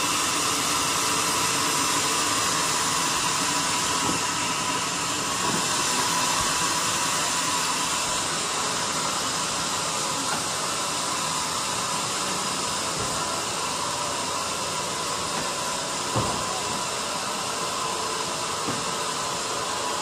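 Band sawmill running steadily, a continuous whirring hiss with a faint steady tone. A single knock sounds about three-quarters of the way through.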